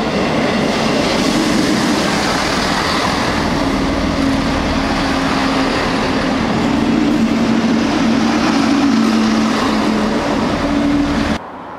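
Class 158 diesel multiple unit passing close by, a loud steady rush of wheel and running noise with a droning hum from its engines. It cuts off suddenly near the end.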